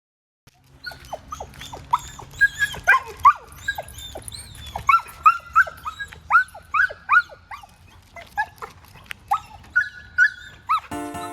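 Mixed-breed dog whining and yelping in a fast string of short, high-pitched cries, many dropping in pitch, with a longer held whine near the end.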